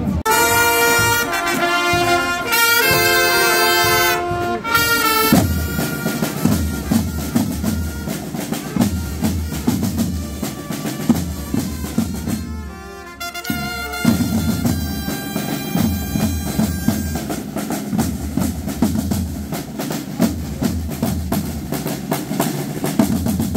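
Brass band playing a march with drums. A loud held brass phrase sounds for about the first five seconds, then quieter band playing goes on with steady drum beats.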